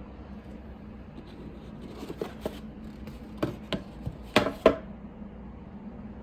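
About eight short, sharp knocks in an irregular run over a steady low hum, the loudest of them near the end.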